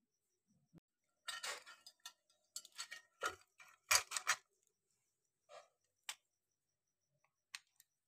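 Small plastic and metal parts of an opened hair dryer clicking and rattling as they are handled, in irregular short clicks. A louder scuffing burst about four seconds in comes from a sleeve brushing over the microphone.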